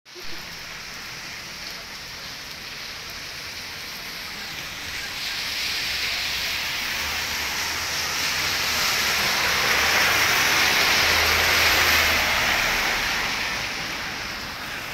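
Rain falling, a steady hiss that grows louder through the middle and eases off near the end.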